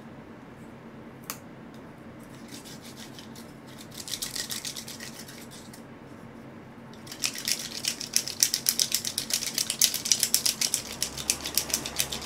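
Disposable wooden chopsticks rubbed briskly against each other, a rapid scratchy rasping that starts about seven seconds in, with a brief rustle a few seconds before it.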